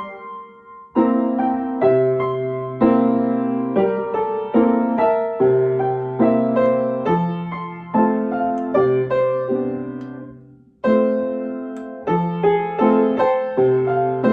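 Piano being sight-read: chords and single notes played at a slow, halting pace, each note fading after it is struck. The playing stops briefly just after the start and again about two-thirds of the way through.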